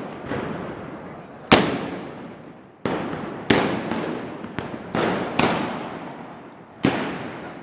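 A string of about eight loud gunpowder blasts at irregular intervals, some close together, each with a long echoing tail.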